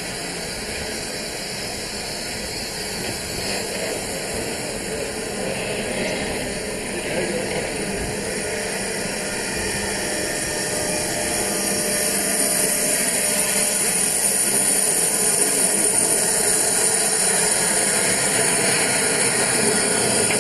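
Steam hissing steadily from the standing steam locomotive 35028 Clan Line, a Bulleid Merchant Navy class Pacific; the high hiss grows louder over the second half.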